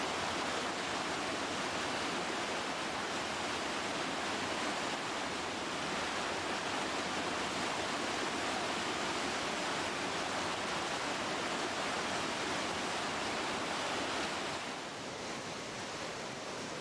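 Whitewater rapid rushing steadily, a dense, even wash of water noise from a large drop and wave train; it becomes slightly quieter and duller about fifteen seconds in.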